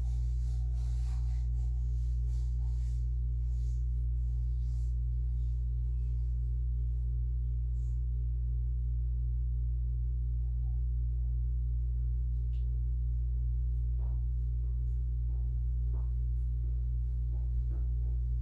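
Steady low hum that does not change, with a few faint clicks about three quarters of the way through.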